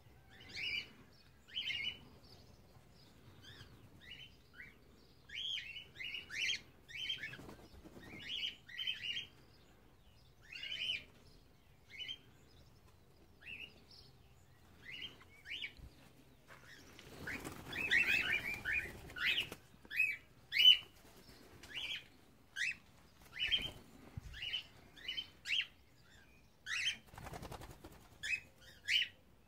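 Cockatiels chirping in short, repeated calls, with wings flapping in a flurry of louder calls just after the middle and again briefly near the end.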